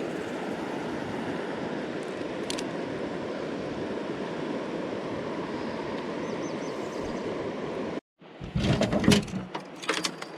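Steady rush of a mountain river's current. About eight seconds in it cuts off abruptly, followed by a couple of seconds of louder irregular knocks and rustling.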